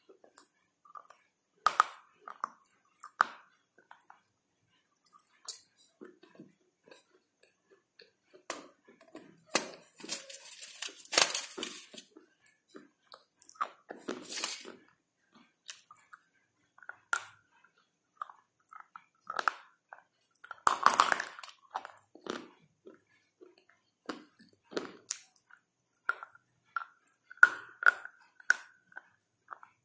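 Close-up biting and chewing of a hard, chalky white stick: irregular crisp cracks and crunches with wet mouth sounds between them, the loudest clusters of crunching about a third of the way in and again about two thirds in.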